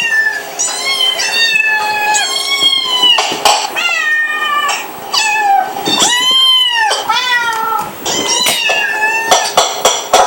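Cat meowing over and over, a rapid series of high-pitched, kitten-like meows that mostly fall in pitch, with one longer arched meow about six seconds in. A few sharp clicks come between the calls.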